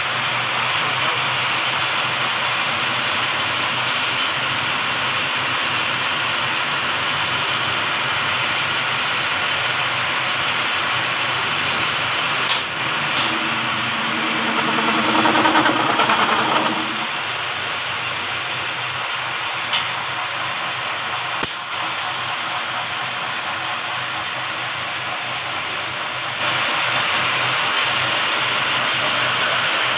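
Automatic lathe running steadily, with coolant splashing over the cutting tools as it machines a steel part. A pitched whine comes in for about three seconds near the middle as a tool cuts, with a few sharp clicks. The machine noise gets louder a few seconds before the end.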